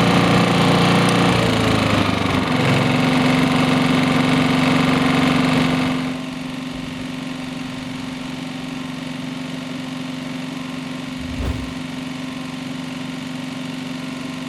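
Yamaha 3000-watt inverter generator running steadily. About six seconds in it drops to a quieter, lower-speed hum as economy mode takes over, and stays steady from then on.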